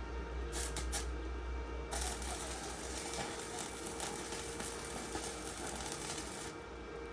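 Electric arc welding: a few short crackles as the arc is struck, then a steady crackling sizzle from the arc for about four and a half seconds that cuts off near the end.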